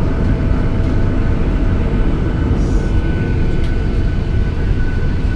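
Boeing 737-800 cabin noise while taxiing: the CFM56 engines' steady low rumble heard from inside the cabin, with a steady high whine over it.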